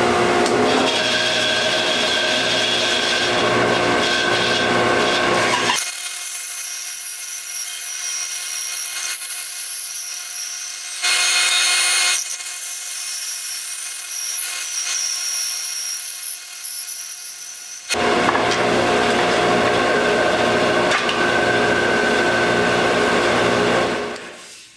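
Delta bandsaw running and cutting through a thick wooden workpiece, a steady rasping saw noise over the motor hum. The low hum drops out for a long stretch in the middle, and the sound fades away near the end.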